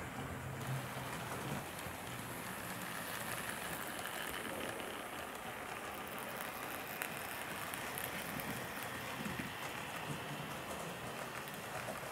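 HO scale model train running past on its track: a steady rattling hiss from the coaches' wheels rolling on the rails, with a few small clicks scattered through.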